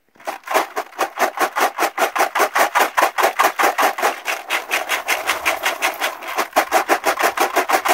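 Sand rattling and hissing inside a hand-held Golden Retriever drywasher, a manual metal box, as it is shaken quickly up and down at about six shakes a second. The up-and-down shaking settles the gold in the drywasher.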